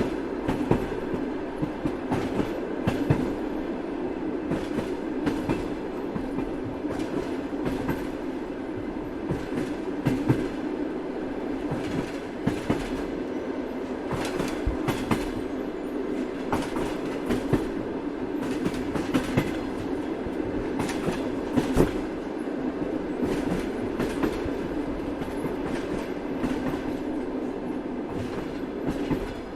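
Moving train running steadily along the track, a continuous rumble with frequent sharp clicks at uneven spacing from the wheels on the rails.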